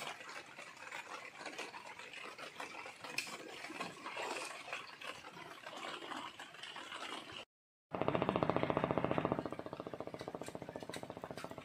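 Light rain falling on reservoir water, an even hiss with small scattered clicks. After a brief break, a fast, even mechanical pulsing of unknown source starts; it is loudest for its first second and a half, then steadier.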